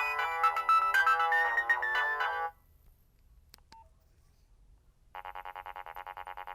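Nokia 1600 ringtones played through the phone's small speaker. A melody of electronic notes ends about two and a half seconds in. After a short pause with a couple of faint clicks, the next ringtone starts about five seconds in as a rapid, evenly pulsed buzzing tone, about ten pulses a second.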